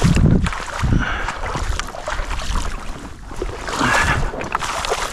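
Rubber boots wading through an ankle-deep creek, water splashing and sloshing with a few heavy steps, with wind buffeting the microphone.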